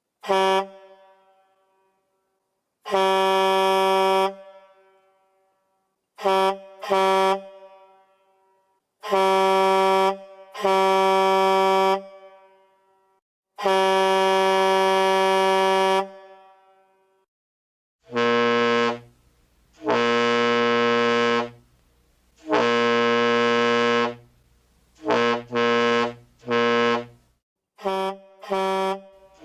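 Semi-truck horn sound effects: a run of separate blasts, some short and some held for one to two seconds, each fading off with an echo. About eighteen seconds in, a deeper horn takes over with long blasts, then a quick string of short toots near the end.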